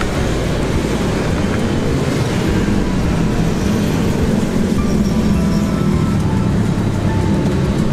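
Steady low rumble of road traffic, with music playing.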